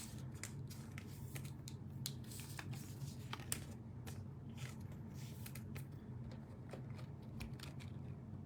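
Trading cards being handled: faint, scattered soft clicks and rustles of card stock over a steady low hum.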